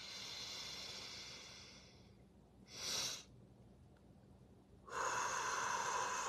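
A woman's deep breath in through the nose, a short extra sniff of air about three seconds in to top up her full lungs, then a long breath out through pursed lips starting about five seconds in.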